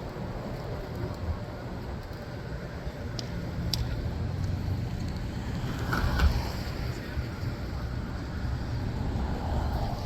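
City street traffic heard from a moving electric scooter: a steady low rumble, with a brief louder sound about six seconds in.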